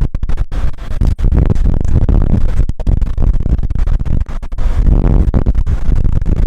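Wind buffeting the microphone over a loud, low rumble, cutting out briefly many times.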